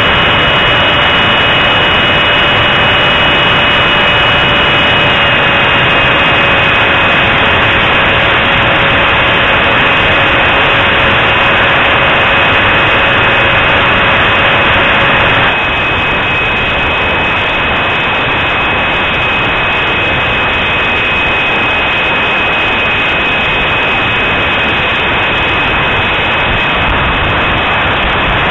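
64 mm electric ducted fan of an RC T-45 Hawk jet running in flight: a loud steady rush of air with a high, even whine, heard through a keychain camera strapped to the wing. About halfway through the sound drops a little and the lower whine stops.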